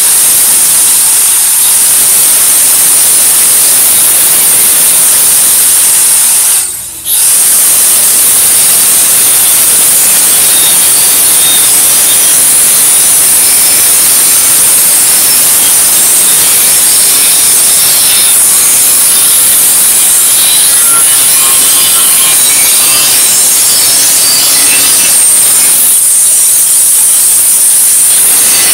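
Angle grinder with a small cut-off wheel cutting through the steel shell of an old propane tank: a loud, steady, high-pitched cutting noise. There is one short break about seven seconds in, then the cutting goes on.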